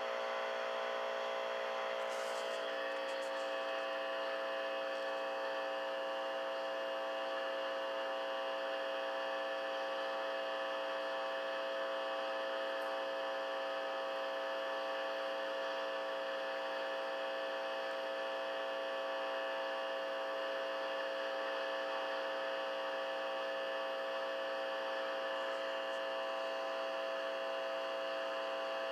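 Steady electrical hum and buzz from a home-made electromagnet pickup with a 2N2222 transistor preamp, played through a Fender Rogue guitar amp. Many steady tones are layered together, and there is a short crackle about two seconds in.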